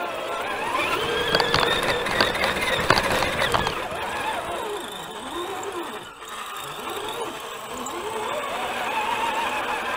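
Electric motor and gear whine of a radio-controlled off-road model truck, rising and falling in pitch with the throttle. A few sharp clicks and knocks come between about one and four seconds in as it drives over ice and slush.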